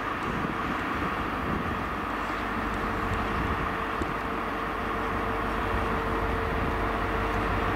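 Class 66 diesel freight locomotive running as it approaches slowly, a steady engine drone with a held whining tone coming in about a second and a half in and the low rumble building toward the end.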